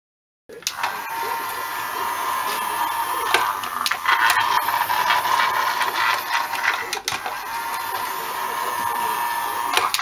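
Small model train running over dual-gauge track and pointwork: a steady mechanical whir from the locomotive's drive, broken by sharp clicks as the wheels cross rail gaps and frogs. It starts abruptly about half a second in.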